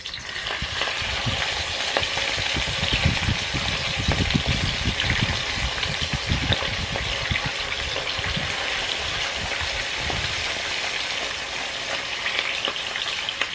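Whole mojarra fish, unfloured, sizzling in very hot oil in a deep pan, a steady crackling hiss that swells about a second in as a fish is lowered into the oil. Irregular low thumps come and go underneath.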